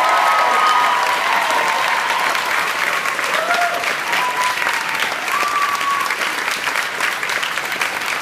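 Audience applauding steadily, with a few voices calling out over the clapping, easing off slightly toward the end.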